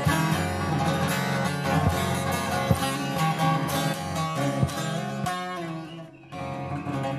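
Carved-bowl (tekne) divan sazı, a long-necked Turkish bağlama, strummed fast in a running melody over ringing low strings. The playing drops away briefly about six seconds in, then picks up again.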